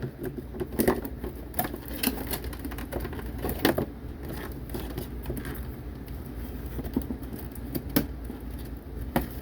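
Small plastic toy pieces and packaging being handled: irregular clicks, taps and rustles, a few louder knocks, over a steady low hum.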